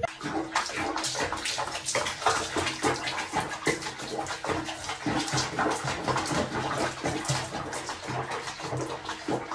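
Water sloshing and splashing irregularly in a plastic basin as a cat sits in foamy bathwater.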